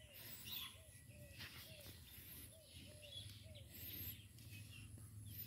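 Faint birds chirping and calling, with a soft, short, low call repeating every half-second or so.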